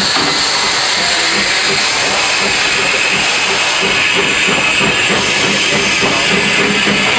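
Steam hissing steadily and loudly in the cab of the Furka steam railway's locomotive No. 1, an HG 3/4 rack-and-adhesion steam engine, as it runs under steam.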